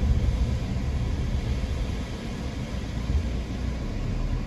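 Car driving, with a steady low rumble of engine and tyres under an even hiss of road noise.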